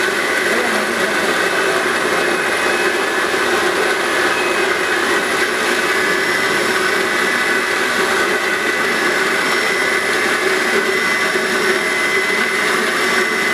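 Small grain-milling machine running steadily under load, grain feeding through it and pouring out of its outlet chute. A constant whirring with a steady hum and no change in speed.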